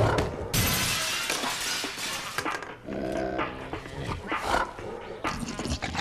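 Cartoon sound effects: a sudden crash of something shattering about half a second in, lasting about two seconds, then a cartoon bear's short grunting, growling vocal sounds.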